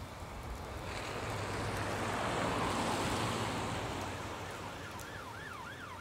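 A car drives past: engine and tyre noise swells, peaks about halfway through, then fades. From about four seconds in, a faint siren wails rapidly up and down, about three cycles a second.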